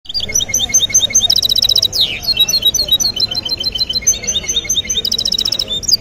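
Caged finch singing a long, rapid twittering song of chirps and whistles, broken by a very fast buzzy trill about a second in and another near the end, with a quick falling note in between.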